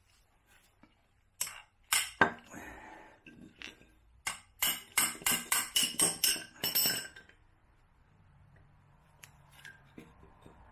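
A spanner and nuts clinking against the steel studs of a motorcycle cylinder: a few separate sharp clinks, then a quick run of about nine clinks a third of a second apart.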